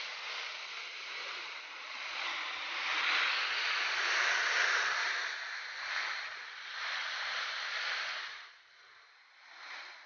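Rushing water of a river waterfall: a steady hiss that swells and fades, falling away quietly near the end.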